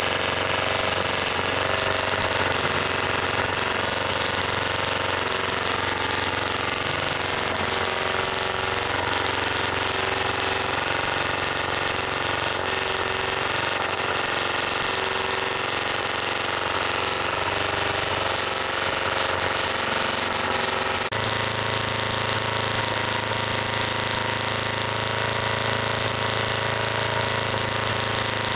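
Microcosm M12 miniature gasoline model engine running steadily with a fast, even mechanical chatter. About 21 seconds in, its note changes abruptly and then holds steady at the new pitch.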